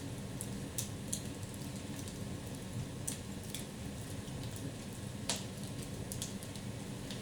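Wood fire in a fireplace crackling, with scattered sharp pops, the loudest about five seconds in, over the steady low sound of the flames.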